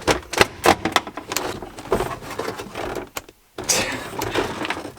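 Plastic interior trim cover, a stiff subwoofer cover, being pried and worked loose: a string of irregular clicks, knocks and rattles, broken by a short gap of silence a little past three seconds.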